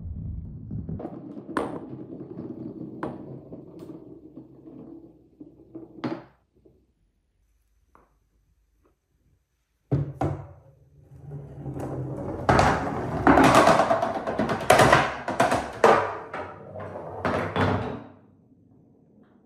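Balls rolling down a wooden marble run track, rumbling with scattered knocks. The sound stops for a few seconds, then comes back suddenly and builds to a loud clatter of many balls hitting wood and each other.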